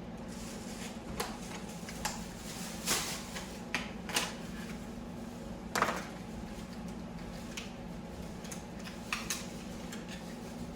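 Irregular clicks and light knocks of computer parts and hardware being handled during a PC build, the loudest about six seconds in, over a steady low hum.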